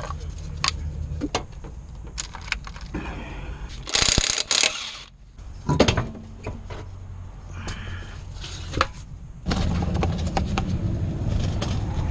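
Clicks and clatter of tools at work on a car wheel, with a loud noisy burst lasting about a second, four seconds in, over a steady low hum that grows louder near the end.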